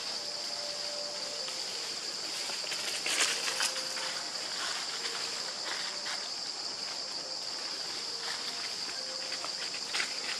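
Steady high-pitched insect drone running on without a break. A few short crackles break in a little after three seconds and again near the end, likely the dry leaf litter being stirred.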